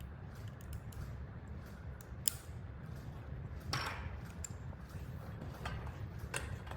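Small clicks and a scrape of parts being handled as a belt clip is fitted onto the drive belt of an electric curtain track, with one sharp click a little over two seconds in and a longer scrape just under four seconds in.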